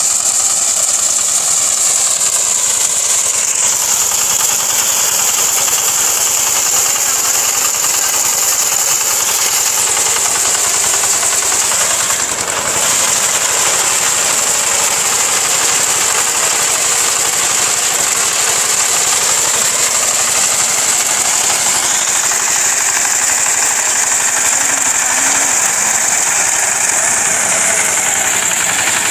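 VST Shakti 130 DI power tiller's single-cylinder diesel engine running steadily with a fast, even knock while it drives a front-mounted reaper attachment cutting standing wheat.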